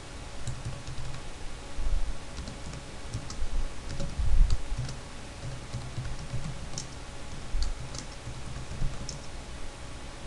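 Computer keyboard being typed on: irregular key clicks with soft low thumps.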